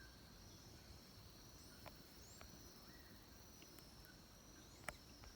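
Near silence with a faint, steady, high-pitched insect trill, a few faint bird chirps, and a soft click near the end.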